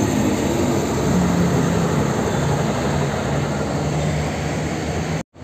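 Diesel engine of an intercity coach bus running at low speed as it pulls past close by, a steady low hum over general terminal noise. The sound cuts off suddenly near the end.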